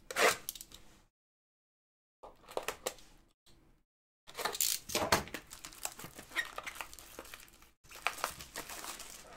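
Plastic shrink wrap on a cardboard box of trading cards being cut with a blade and pulled off: irregular crinkling and rustling with small clicks, broken twice by a moment of dead silence.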